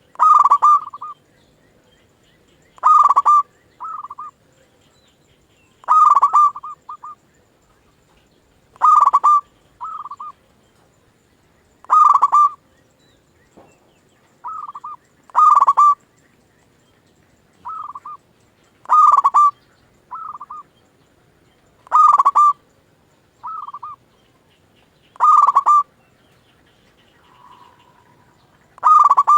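Zebra dove (perkutut) cooing over and over, one call about every three seconds. Each call is a short run of coos centred near one pitch, and most are followed by a fainter, shorter coo.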